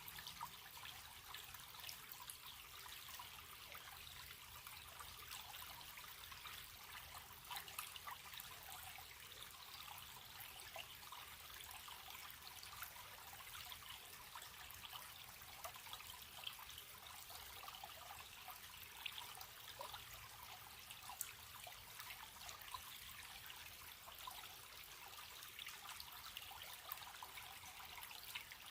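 A stream running steadily, a continuous bright, hissy wash of water full of tiny splashes, with little deep rumble.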